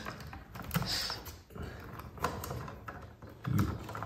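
Light clicks, taps and scraping of a plastic electrical wall socket and its wires being handled and pushed into its wall box.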